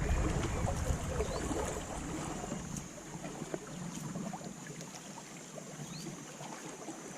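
River ambience from a small boat: a low wind rumble on the microphone dies away over the first three seconds, leaving a quiet water hiss with a few light knocks over a steady high-pitched drone.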